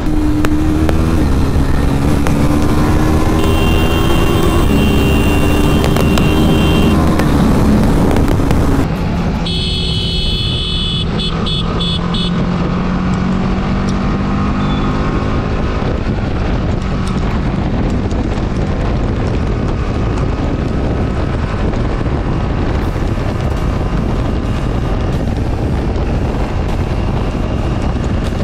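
BMW G 310 RR's single-cylinder engine running on the move, its note rising in steps as it pulls through the gears. The sound changes abruptly about nine seconds in, after which the engine runs at a lower, steadier pitch.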